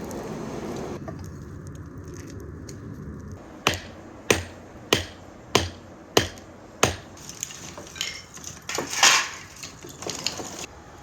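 Blacksmith's hammer striking hot metal on an anvil: six sharp, evenly spaced blows, about one and a half a second, then a looser run of lighter taps. A steady rushing noise cuts off about a second in, before the hammering.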